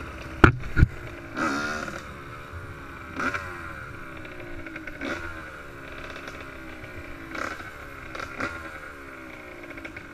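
Yamaha YZ85 two-stroke dirt bike engine running at low speed, with short throttle blips every one to two seconds that rise and fall in pitch. Two sharp knocks come about half a second in.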